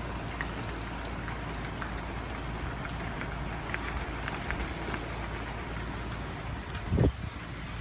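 Steady hurricane rain with scattered drops ticking, and a short low thump near the end.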